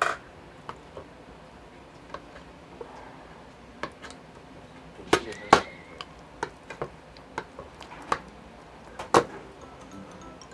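Metal spoon clinking and scraping against a bowl while a boiled egg is mashed into tteokbokki sauce: about a dozen scattered clicks, the loudest about five and a half and nine seconds in.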